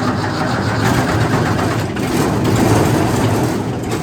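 Wood chipper's gasoline engine running loud and steady on full choke, a cold start just caught.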